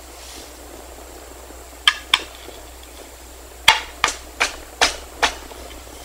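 Mallet striking a chisel while chopping out a lock mortise in wood: two sharp knocks about two seconds in, then five more at a steady pace of about two and a half a second.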